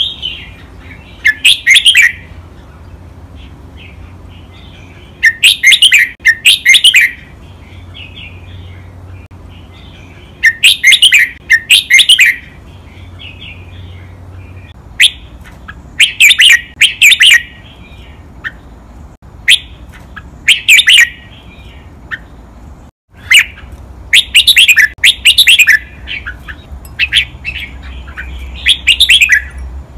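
Red-whiskered bulbul singing: loud, clear song phrases, each a quick run of whistled notes lasting one to two seconds, repeated about every four to five seconds, with softer single calls in between.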